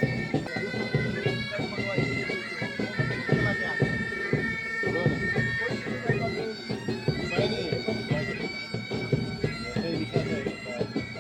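Military pipe band's bagpipes playing a tune: held notes that step from pitch to pitch over the pipes' steady drone.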